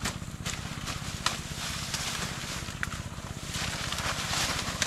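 A steady, evenly pulsing low motor drone, with rustling and a few sharp snaps of dry vegetation as people push through brush.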